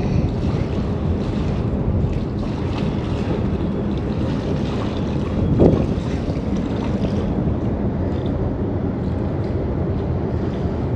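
Wind buffeting the microphone: a steady low rumble, with a stronger gust about halfway through.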